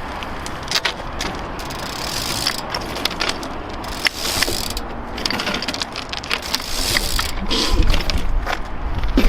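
BMX bike being ridden, its rear hub ratchet clicking as it coasts, with tyre rolling noise and scattered small knocks.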